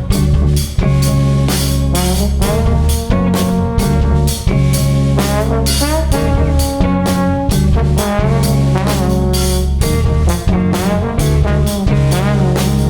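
Trombone playing a melodic line with slides in pitch, over a drum kit and baritone guitar.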